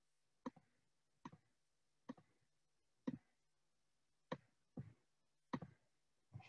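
Computer mouse clicking: about eight short, sharp clicks, spaced under a second apart, some of them doubled, as dropdown menus are opened and options picked.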